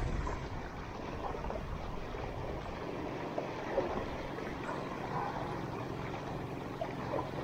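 Small sea waves washing and splashing over shallow rocks in a steady rushing hiss, with a couple of faint ticks near the middle.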